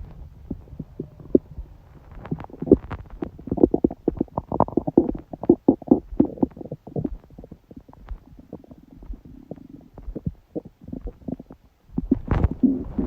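A woman's stomach gurgling and rumbling, picked up close: a run of bubbling gurgles and pops, thickest a few seconds in, easing to a soft low rumble around the middle, then louder gurgling again near the end. It comes with a period stomachache on the third day of menstruation.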